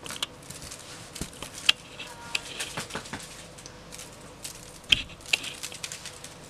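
Scattered light taps, scratches and rustles as a Ragdoll kitten swats and pounces at a feather wand toy on a blanket, with two sharper clicks, one just under two seconds in and one about five seconds in. A faint steady hum runs underneath.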